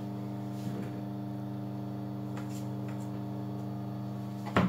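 Sewing machine motor humming steadily as the embroidery is worked, with one brief knock near the end.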